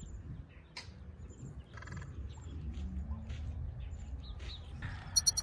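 Small birds chirping now and then over a low outdoor rumble, with a quick run of three sharp, louder high notes near the end.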